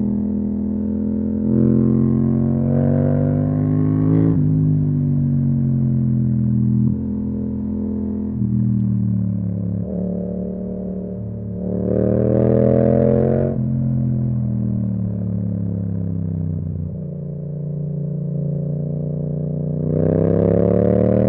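Yamaha MT-07's parallel-twin engine through an Akrapovic exhaust, accelerating hard in three surges. The revs climb and step through gear changes, then fall back to a steadier cruise between the pulls, the last pull starting near the end.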